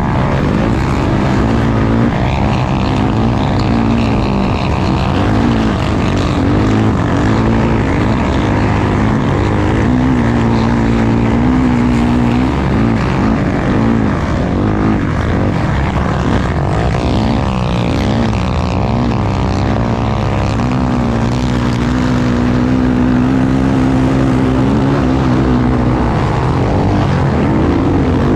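Racing engine running hard and continuously, its pitch rising and falling again and again with the throttle.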